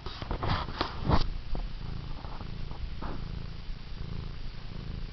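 Domestic cat purring steadily while kneading, with a few brief louder noises in the first second or so.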